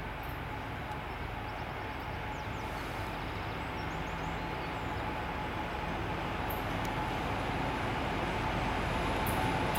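M62 diesel locomotive's two-stroke V12 diesel engine working as it pulls a train toward the listener: a steady drone with a low hum and a thin steady tone, growing gradually louder as it nears.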